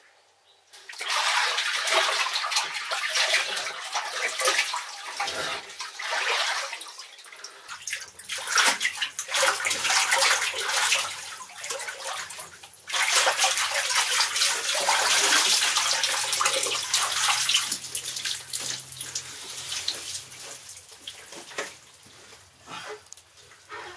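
Water splashing and sloshing as a person moves through a bamboo-lined pool. It starts about a second in, has two short lulls and dies away near the end.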